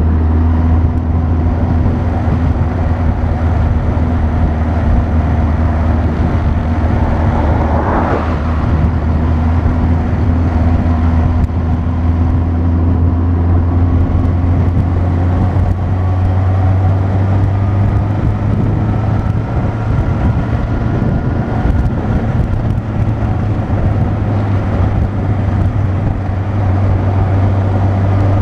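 Motorcycle engine running steadily at cruising speed, heard with wind rushing over the microphone. There is a brief swell of rushing noise about a third of the way in, and a little past halfway the engine note steps slightly higher.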